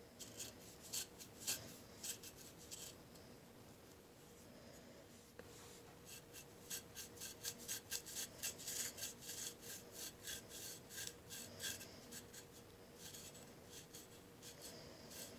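The 90-degree spine of an LT Wright Kamrat knife scraping psoriasis scales off the skin of a leg in quick repeated strokes, several a second. The strokes come in runs, with a lull from about three to six seconds in and the densest scraping in the middle.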